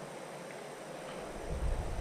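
Steady hiss of flowing creek water. About a second and a half in, a low buffeting rumble on the microphone sets in.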